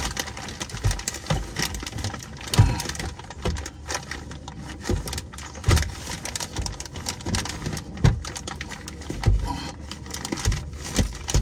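A plastic bag crinkling and rustling in a gloved hand as it is worked around an oil filter to catch the draining engine oil, with dull knocks every second or two.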